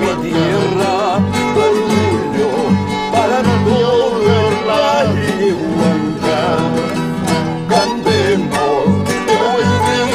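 Instrumental passage of an Andean huayno: a violin plays the melody with wavering, ornamented lines over a guitar accompaniment and a steady, even bass beat.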